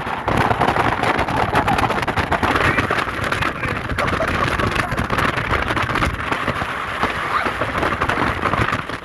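A vehicle on the move: engine and road noise, with wind buffeting the microphone in rapid gusts.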